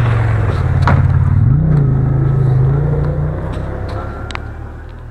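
Snowmobile engine running as it drives past, its pitch rising once about a second and a half in, then fading as it moves away.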